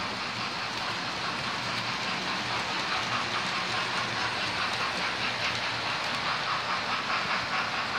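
Model railway trains running on the layout: the steady whirr of small electric motors and the rattle of wheels over the track, with a quick run of clicks in the second half as a rake of coaches passes close by.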